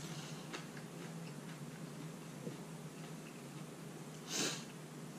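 A short, forceful breath through the nose about four seconds in, over a quiet room with a steady low hum.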